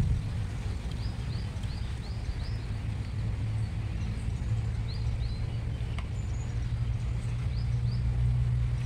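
Birds chirping in runs of short high calls over a steady low hum, with a single click about six seconds in.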